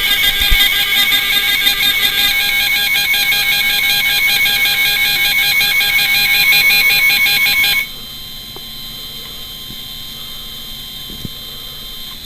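NOAA Weather Radio warning alarm tone (the 1050 Hz attention signal), played through computer speakers and picked up by a webcam microphone. It is loud and steady and cuts off suddenly about eight seconds in, leaving a faint hiss before the spoken alert message.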